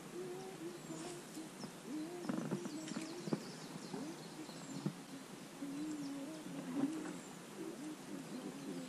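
Faint birdsong of short high chirps, over a low wavering hum.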